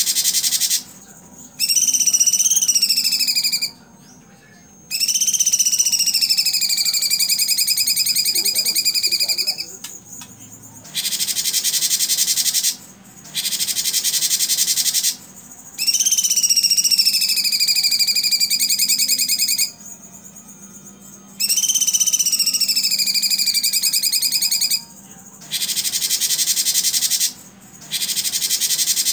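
Cucak cungkok singing a loud, repeating song. Stretches of rapid-fire harsh high notes, the "tembakan", alternate with long whistled notes that fall and then hold level, with short pauses between phrases.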